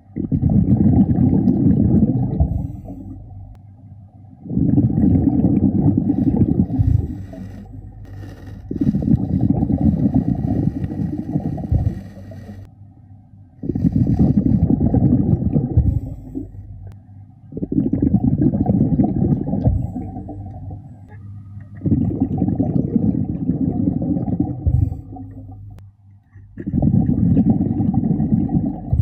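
Scuba diver breathing through a regulator, heard underwater: exhaled bubbles rush out in regular bursts of two to three seconds, one about every four seconds, with quieter inhalations between.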